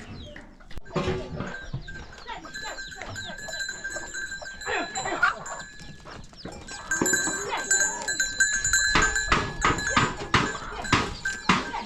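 Sheep and goats bleating, with the ringing of their neck bells. Near the end comes a quick run of sharp knocks.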